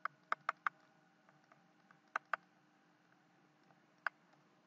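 Quiet, short, sharp clicks from writing on a computer whiteboard: about seven in all, a quick run of four near the start, two close together a little past two seconds, and one more near the end.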